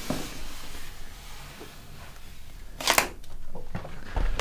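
Protective paper wrap being peeled off a computer screen, rustling softly, with a louder crinkle of the sheet about three seconds in as it comes away.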